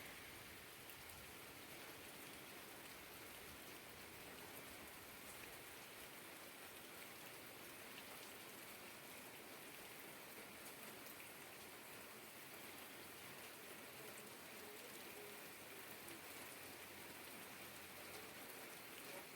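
Rain falling steadily, a soft even hiss with faint scattered drop ticks.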